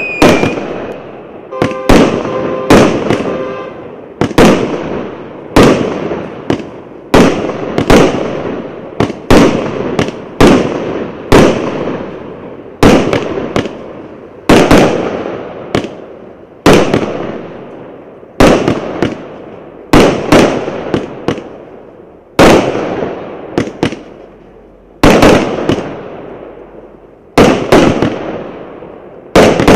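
A 99-shot, 1-inch firework cake firing shot after shot, about one a second and sometimes two in quick succession. Each shot is a sharp bang followed by a fading crackle and hiss of the burst. A brief whistling tone sounds about two seconds in.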